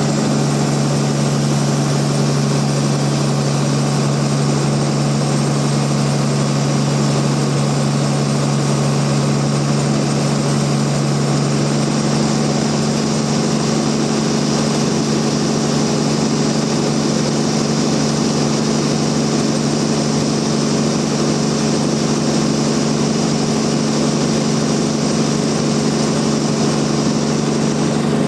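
Bandsaw sawmill running steadily, a constant engine-like drone with a hiss over it; the deepest tone fades a little about twelve seconds in.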